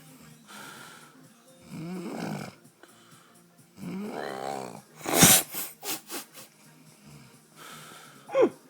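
A man snoring heavily in deep drunken sleep, in irregular breaths. Some snores are pitched and rise and fall in tone, with a loud sharp snort about five seconds in.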